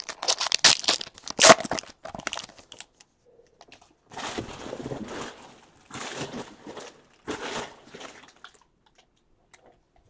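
Foil wrapper of a baseball card pack crinkling and tearing open for about the first two seconds. Then come three softer swishes a second or so apart as the stack of cards is handled.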